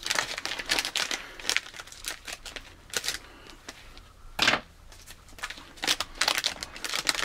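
Foil snack bag crinkling and rustling in irregular bursts as it is opened and handled, the loudest burst about four and a half seconds in.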